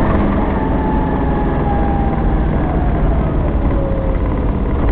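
Aixam Mega Multitruck's small Kubota two-cylinder diesel running as the van drives along, heard from inside the cab, with a steady low drone and a thin whine that slowly drops in pitch.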